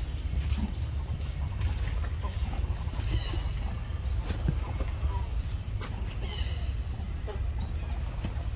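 Baby long-tailed macaque squealing in distress while an older macaque grabs and holds it. Short, high-pitched squeals repeat about once a second over a steady low rumble.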